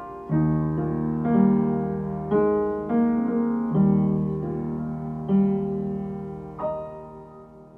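Slow, gentle piano music: sustained chords struck every second or so, the last one struck shortly before the end and left to die away.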